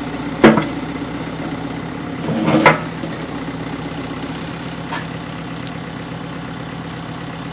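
CAT 430D backhoe's diesel engine idling steadily, with a sharp knock about half a second in and a short clatter around two and a half seconds in.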